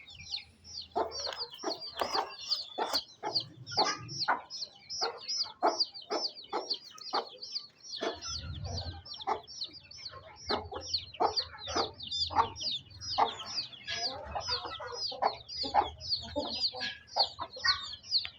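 Chickens clucking, with a steady run of short high-pitched peeps, about three a second, going on throughout.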